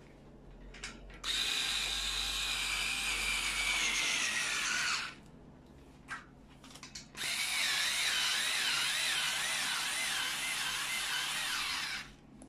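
Cordless drill-driver driving screws into a metal bunk-bed frame, running in two long bursts of about four and five seconds. In the first burst the whine falls in pitch; in the second it wavers up and down. A few clicks come at the very end.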